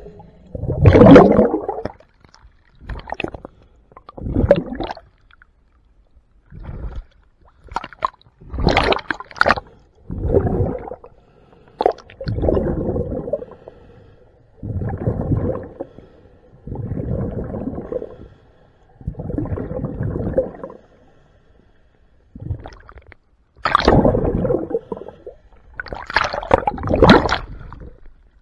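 Scuba diver's exhaled air bubbling out of the regulator underwater, in bursts one to two seconds long every couple of seconds, about a dozen times.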